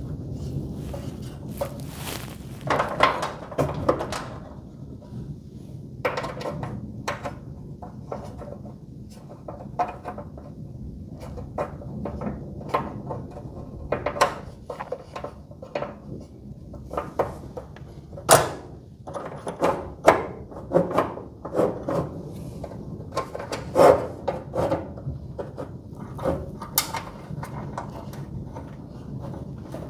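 Irregular knocks, clicks and clatter of hands working on garage door hardware, with sharper knocks about 3, 18, 20 and 24 seconds in.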